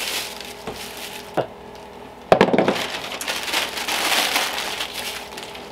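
Plastic packaging crinkling and rustling as bagged items are handled and a poly mailer is opened, with light clicks early on and a sharp knock a little over two seconds in.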